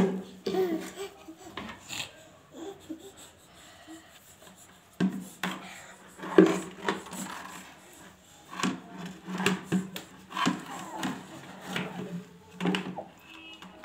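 A plastic bucket knocking and scraping against concrete stairs as a toddler drags it up the steps by its wire handle, in irregular thuds and scrapes.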